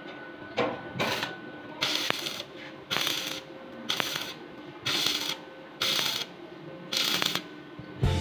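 Stick (arc) welding on the steel frame of a tank stand. The arc crackles and hisses in short bursts of about half a second each, roughly once a second.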